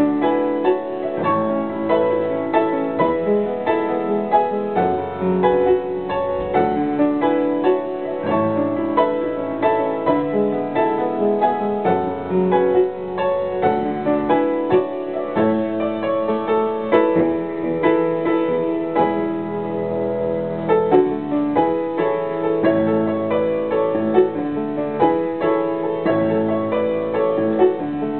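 Upright piano played solo, a continuous flow of chords and melody notes.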